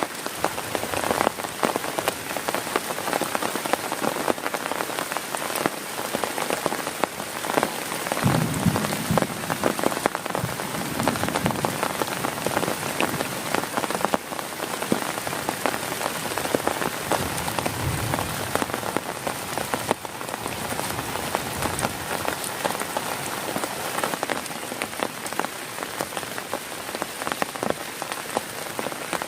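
Heavy rain falling on a tent: a steady, dense hiss of rain with many sharp individual drop hits. Twice, at about 8 and 18 seconds in, a brief low rumble sits under the rain.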